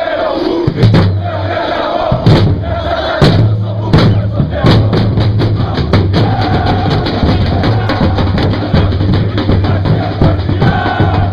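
Football supporters chanting together to a beating drum rhythm, with sharp percussive hits and claps.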